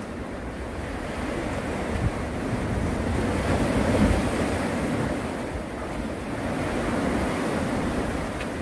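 Sea waves washing against a concrete tetrapod breakwater, a steady surf wash that swells to its loudest about four seconds in, with some wind on the microphone.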